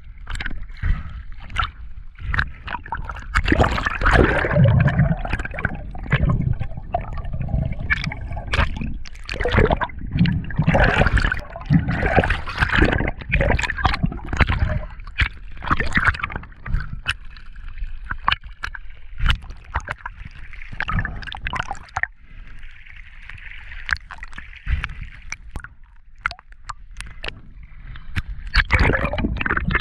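Sea water sloshing and gurgling at the surface, the microphone dipping in and out of the water, with many sharp splashes and bubbling.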